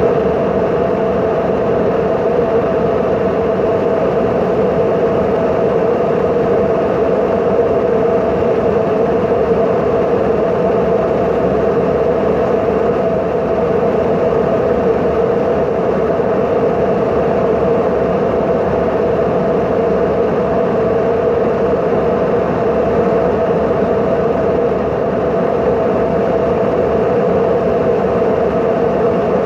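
Airliner cabin noise in flight: the steady drone of the jet engines and rushing air, heard inside the cabin at a window seat, unchanging throughout.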